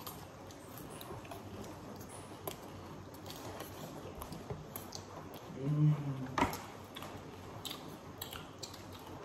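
People eating chatpate, the crunchy spiced puffed-rice snack, fast: quiet chewing and crunching with scattered light clicks and taps. A short voice sound comes about six seconds in, followed by a sharper click.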